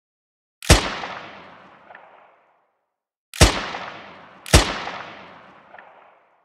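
Three gunshots out of silence, the first about a second in and the other two close together about a second apart near the middle; each one echoes and dies away over a second or more.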